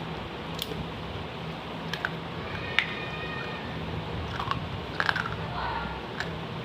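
Sharp crunches and clicks, a handful at irregular intervals, from pieces of a baked clay kulhad cup being bitten and chewed, over a steady low hum.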